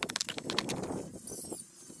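Shovel digging in soil, sped up: a quick run of sharp clicks of the blade over a scraping of dirt, thickest at first and thinning out toward the end.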